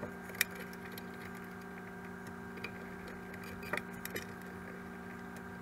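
Steady hum of a running fan, with a few light clicks and taps from wires and twist-on wire connectors being handled and twisted together at a dishwasher's junction box; the sharpest click comes about half a second in.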